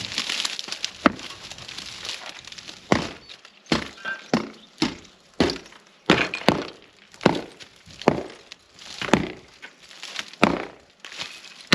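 A series of heavy blows against an old wall as it is knocked down by hand. The blows are sparse at first, then come steadily at about two a second, each a sharp knock with a short rattle of loosened debris.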